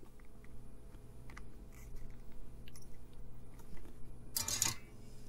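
Faint small clicks and crackles from handling a circuit board and soldering a capacitor onto it, over a steady low hum. There is a short, loud hiss about four and a half seconds in.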